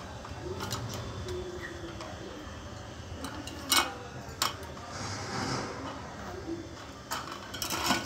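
Green metal wire rabbit cage clinking as rabbits move about inside: two single clicks near the middle and a quick cluster of clicks and rattles near the end.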